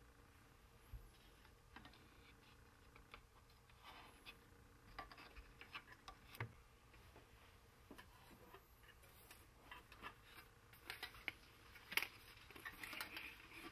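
Faint, scattered clicks and light knocks of a screwdriver and the monitor's metal chassis and circuit board being handled as an LCD monitor is screwed back together.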